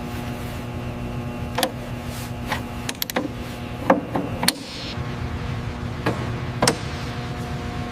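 Scattered sharp metallic clicks and knocks of hand tools on metal, about eight in irregular succession, over a steady machinery hum.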